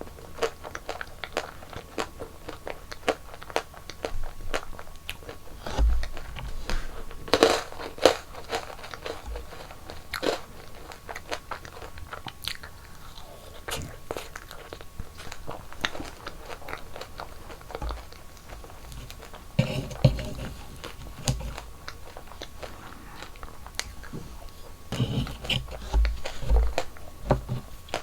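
Close-miked ASMR eating sounds: repeated crunchy bites and chewing of sweets, with a few louder crunches a quarter of the way in, about two-thirds through and near the end.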